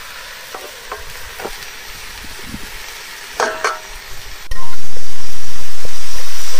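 A metal ladle stirs and clinks against a pan of potatoes and greens frying over a wood fire, with a faint sizzle. About four and a half seconds in, a loud steady hiss starts suddenly and then slowly fades.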